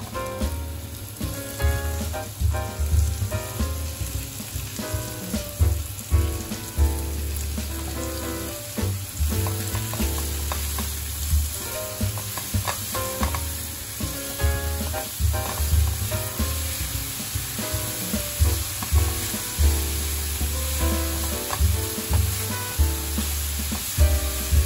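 Pork slices, zucchini and beech mushrooms sizzling as they stir-fry in a nonstick frying pan. They are tossed repeatedly, with the spatula scraping against the pan.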